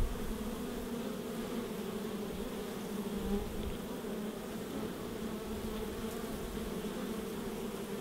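Honey bees buzzing at a hive entrance: many bees together making a steady, even hum.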